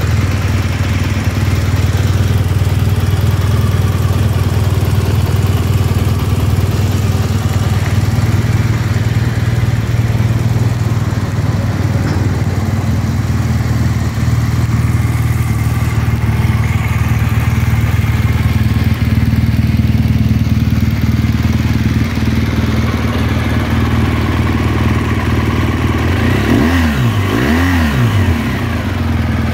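BMW R 1200 GS Adventure's flat-twin boxer engine idling steadily, with two quick blips of the throttle near the end that briefly raise and drop its pitch.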